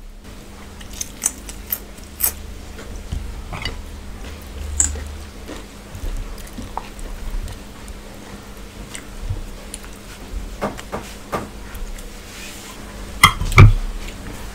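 Hand-eating noises over stainless steel plates: fingers mixing and scooping rice and curry, with scattered light clinks of steel dishes and some chewing. A pair of louder knocks of steel on the table near the end.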